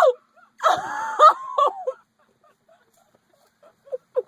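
A girl's high-pitched squealing, gasping cries of disgust, then about two seconds of quiet, then short breathy vocal sounds starting near the end.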